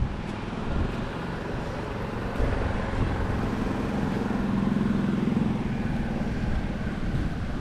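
A motor vehicle driving by, its engine hum swelling through the middle and easing off, over wind buffeting the microphone.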